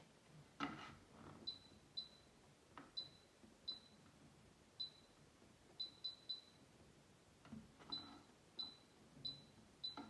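AEG washing machine control panel beeping briefly, about a dozen short high beeps, once for each turn of the program dial or press of an option button while settings are being changed. A soft knock about half a second in.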